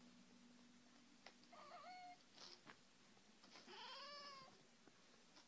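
A domestic cat meowing softly twice: a short meow about two seconds in, then a longer meow that rises and falls about four seconds in.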